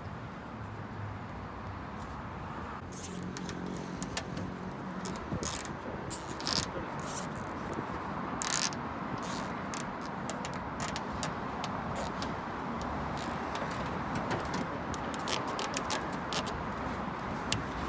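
Irregular clicks, taps and short scraping strokes of hands-on installation work, over a steady background hum.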